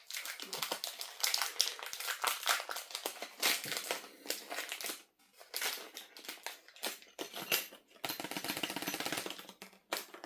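Plastic packaging crinkling and rustling in hand as a small pouch of screws and fittings is opened and handled. Irregular quick clicks and taps run through it, with a few short pauses.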